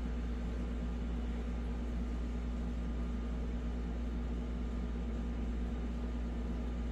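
Steady low hum with an even hiss behind it, unchanging throughout: background room noise of the kind a fan or air conditioner makes. No distinct handling clicks stand out.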